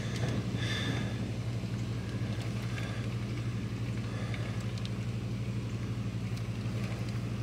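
A steady low hum under a faint, even hiss of storm rain and wind.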